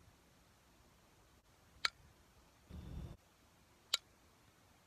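A softball bat hitting a pitched softball twice, about two seconds apart, each a single sharp crack. A short low rumble comes between the two hits.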